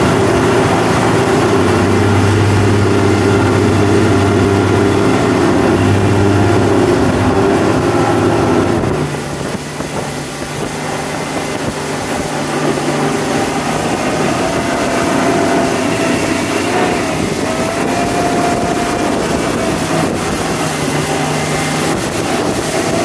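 Motorboat engine running under way while towing a tube, with rushing wake and wind noise. The engine sound drops in loudness about nine seconds in, then slowly builds back up.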